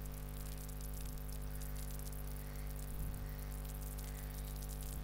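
Background noise of a desktop voice recording: a steady low electrical hum with hiss and faint crackle.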